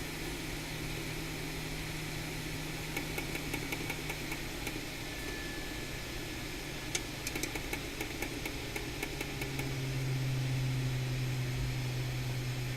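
Hot air rework station's blower running at low airflow while reflowing a replacement Tristar charging chip, a steady hum that drops in pitch and gets louder about three-quarters of the way through. Faint rapid ticking comes in two short spells.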